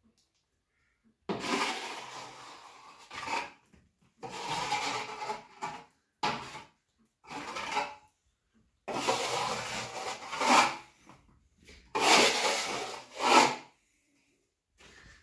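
Plastering trowel scraping wet plaster across a wall in a series of strokes, each a second or two long, with short pauses between.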